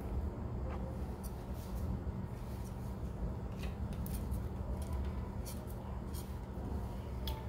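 Palette knife working oil paint, a scattered series of short light scrapes and clicks, over a steady low hum.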